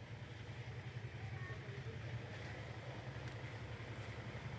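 Faint, steady low hum of an idling engine.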